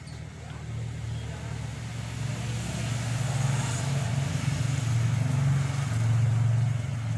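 A motor engine running with a steady low hum, growing louder over the first few seconds and easing off slightly near the end.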